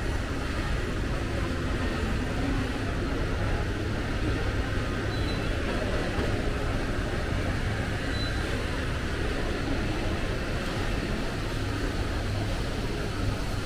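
Steady background noise of a large indoor shopping mall: a continuous low rumble with a hiss over it and no distinct events.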